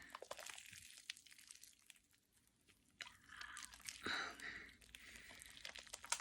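Slime with lip gloss mixed in being kneaded and squeezed by hand: faint sticky crackling and small popping clicks, in two spells with a short pause between them.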